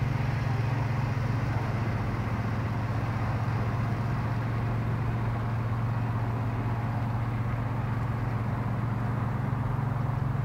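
Radio-controlled lawn mower's motor running steadily, a constant low drone.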